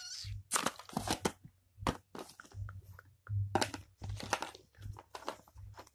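Close crinkling and rustling of packaging being handled, in quick irregular clusters, with low dull bumps of handling underneath.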